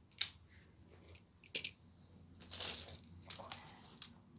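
Plastic magnetic building tiles being handled and snapped together: a few sharp clicks and a longer scraping rustle about halfway through.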